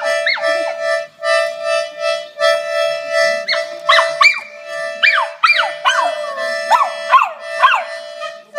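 A toy piano accordion sounding one steady note over and over in short bellows strokes, while a small dog howls along to it in a string of short rising-and-falling howls that come thicker from about halfway through.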